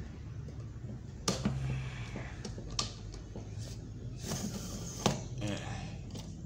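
A few sharp knocks and clicks, three of them spread over several seconds, over a faint low hum, typical of objects being handled on a wooden desk.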